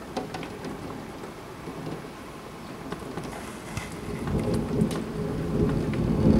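Rain falling steadily during a severe thunderstorm, with scattered drops ticking close by. A deep rumble of thunder builds from about four seconds in and grows louder toward the end.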